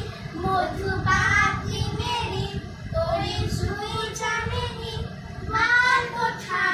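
Two young girls singing a Bengali song together, their voices wavering and gliding in pitch.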